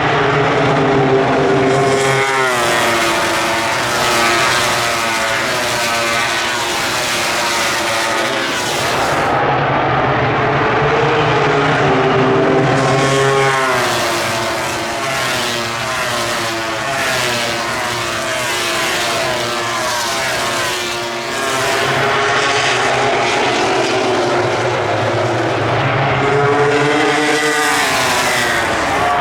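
MotoGP racing motorcycles passing one after another at full throttle. The engine pitch climbs and drops repeatedly as they shift up through the gears, swelling and easing as each bike goes by.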